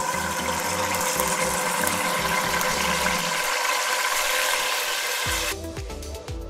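Raisins frying in hot oil, a steady loud sizzle that cuts off suddenly about five and a half seconds in.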